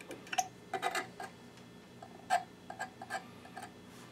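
Light, irregular clicks and taps from small parts being handled at a circuit board on a microscope stage, with a meter probe and fingers touching the board. There are about a dozen clicks, the loudest a little past two seconds in.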